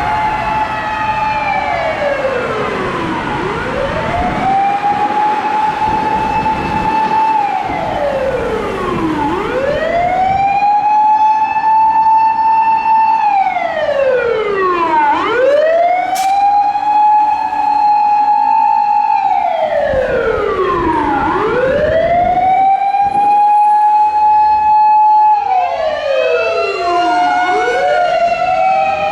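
Fire engine siren wailing in long cycles, rising quickly, holding a high note and sliding down again about every six seconds. Near the end a second siren joins, out of step with the first.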